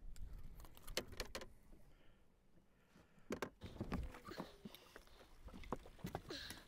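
Scattered knocks, taps and rattles from a netted fish and fishing gear being handled on a boat's deck, a few sharp clicks at a time with quiet gaps between.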